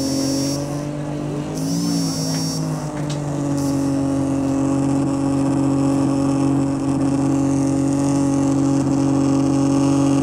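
Bus engine and air compressor running as the bus drives, a steady pitched drone. Two brief high whines come in the first three seconds.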